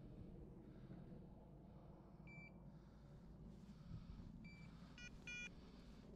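Short electronic beeps from a hunting dog's beeper collar: one a little past two seconds in, then three in quick succession near the end. Under them is faint rustling of dry brush.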